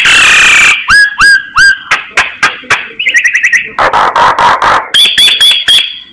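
Myna singing loudly in a varied string of calls. It opens with a harsh screech, follows with three rising whistles, then breaks into fast runs of clicking and chattering notes, with a high whistle held under them near the end.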